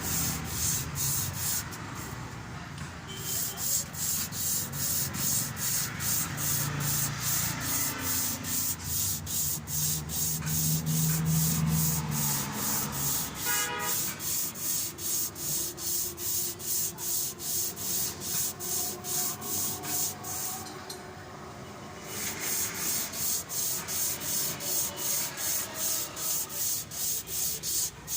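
Crankshaft journal of a Hino 4C diesel engine being polished with abrasive: a steady back-and-forth rubbing at about two and a half strokes a second, pausing twice. A low hum sounds under it in the middle.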